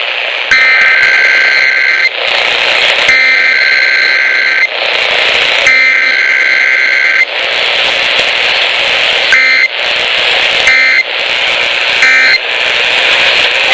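Emergency Alert System SAME data bursts over broadcast radio: three buzzing digital header bursts of about a second and a half each, then three short end-of-message bursts near the end, with radio hiss between them. This is the start and close of a Required Weekly Test.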